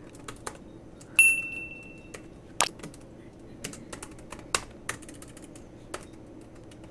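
Computer keyboard keys clicking irregularly as a name is typed. A brief high electronic beep sounds about a second in and lasts about a second.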